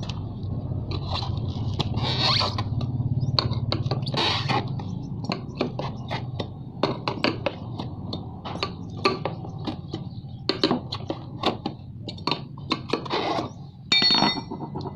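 A steel tire lever prying a scooter tire off its rim: a string of irregular metallic clicks, knocks and short scrapes as the lever works against the rim and the tire bead.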